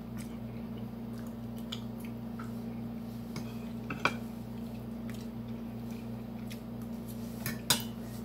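Eating sounds: a fork clicking and scraping in a bowl of cheesy eggs, with chewing, as a few short sharp clicks spread through, the loudest about four seconds in and near the end. A steady low hum runs underneath.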